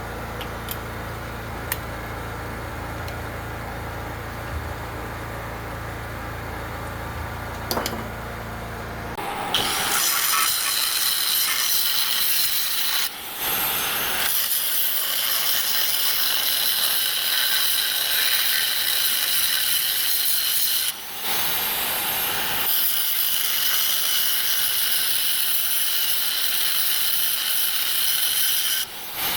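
An engine runs steadily with a low hum and a few light clicks. About nine seconds in, a much louder power tool starts grinding or cutting steel with a steady, high-pitched rasping sound. It stops briefly twice and again near the end.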